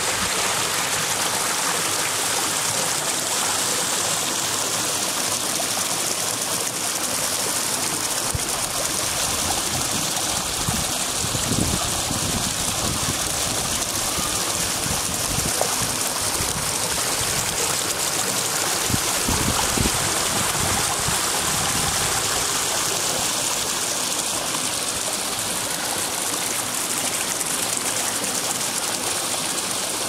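Mountain stream flowing over rocks in a steady rush, with water splashing past a boulder. A few brief low rumbles come about a third and two-thirds of the way in.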